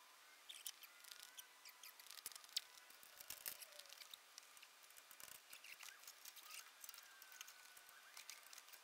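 Near silence with faint scattered clicks and light taps of hand work on a truck engine.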